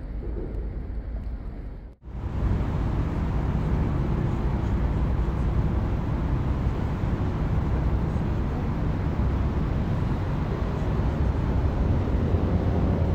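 Steady low rumbling noise of a vehicle in motion. It begins after an abrupt cut about two seconds in; before the cut there is a quieter, duller background noise.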